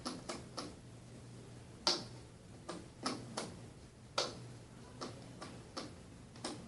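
Small switches on a logic-gate demonstration board being flipped: a dozen or so sharp clicks at uneven spacing, over a faint steady hum.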